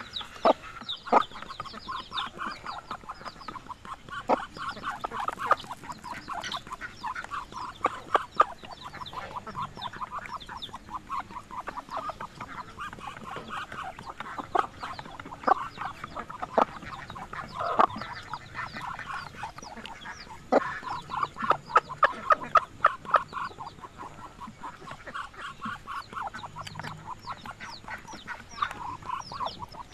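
Free-range chickens and Muscovy ducks feeding together in grass: a steady stream of quick, rapid clucking and chattering calls, with sharp clicks scattered through and a fast run of calls about two-thirds of the way in.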